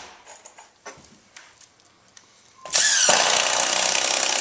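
Cordless drill driving a screw into framing lumber: a few light clicks and taps, then nearly three seconds in the drill spins up and runs steadily to the end.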